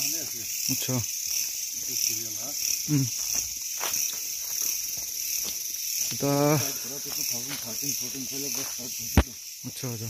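Night insect chorus of crickets chirring steadily at a high pitch, with low, muffled voices now and then and a single sharp click a little after nine seconds.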